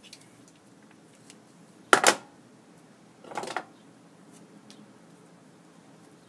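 Adhesive tape pulled off its roll and torn for taping paper sheets together: a short, sharp, loud rip about two seconds in, then a softer rasping pull about a second later.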